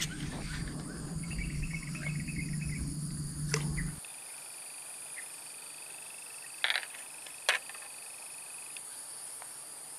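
Steady high-pitched chorus of swamp insects, with a long pulsing trill from about four seconds in and a few sharp clicks. A low rumble stops suddenly about four seconds in.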